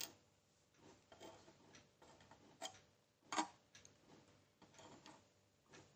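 Scattered light clicks and taps of metal tweezers and a small metal-core LED board against a metal heating plate as SMD LED chips are nudged into place. The sharpest tap comes about three and a half seconds in.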